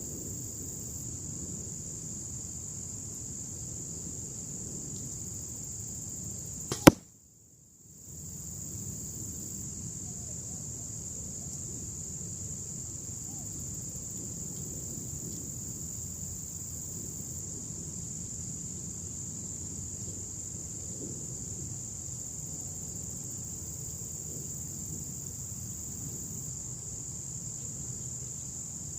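An arrow from a Bowtech Prodigy compound bow, shot at about 310 fps, arriving at the target and hitting it with one sharp smack about seven seconds in; the sound briefly cuts out right after the hit. Crickets trill steadily throughout.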